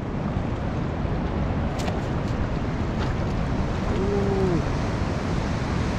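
Sea surf washing on the shore, with wind buffeting the microphone: a steady rushing noise.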